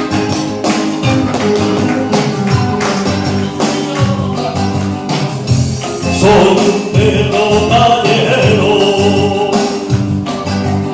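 Rumba backing music with guitar and a steady beat, played loudly over a PA system.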